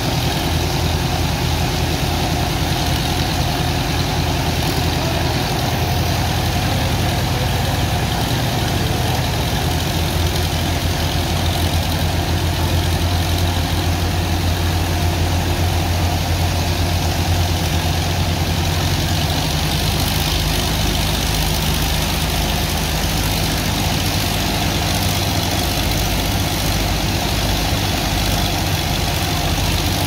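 Engine of a sand dredger pump running steadily under load, with the rushing of a high-pressure water jet and churning sand slurry being sucked up.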